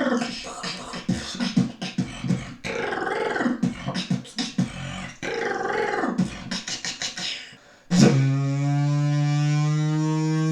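A beatboxer making vocal sound effects: rapid clicks and pitch-bending mouth sounds, then about eight seconds in a sudden switch to a steady, low droning hum.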